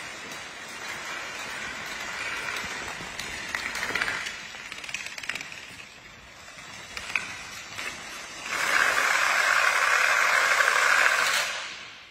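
Dominoes toppling in chains, a fast continuous clatter with some sharper clicks. About eight and a half seconds in, it swells into a much louder, dense rush of clatter as many fall at once, then dies away near the end.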